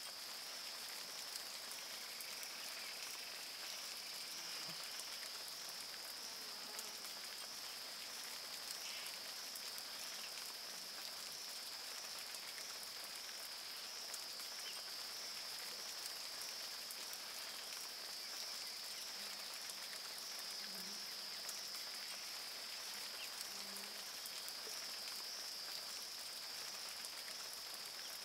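Rain pattering on the river, with a steady high-pitched insect drone that pulses slightly, typical of a tropical rainforest. A few faint low calls come in near the end.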